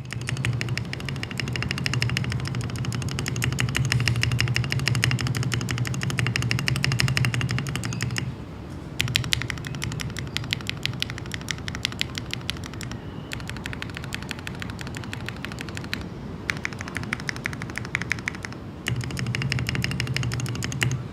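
Fast typing on an NK65 Milkshake Edition mechanical keyboard modded with lubed and filmed NK Silk Yellow linear switches, lubed and tuned stock stabilisers and a tape mod, with Cherry Milkshake keycaps. The keystrokes come as rapid clacking in several long bursts with short pauses between them.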